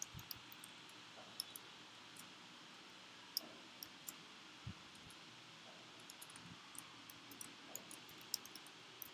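Faint, irregular clicks of computer keyboard keys as code is typed, over a steady hiss, with a few soft low thumps.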